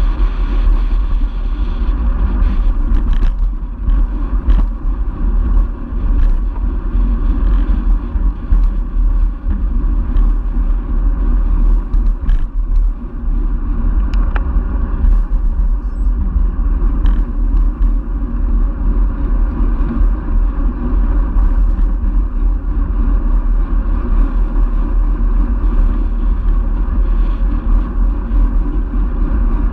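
Wind rushing over the microphone of a camera on a moving road bike, with the bike's tyres rolling on asphalt: a steady low rumble with a few small clicks scattered through it.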